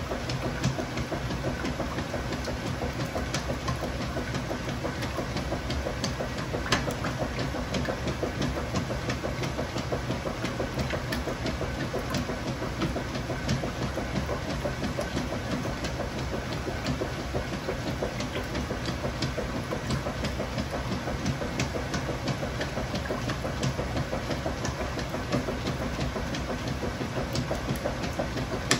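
Kenmore Ultra Fabric Care top-loading washer running with a KitchenAid Dual Action Agitator fitted: a steady mechanical drone with many light, irregular clicks.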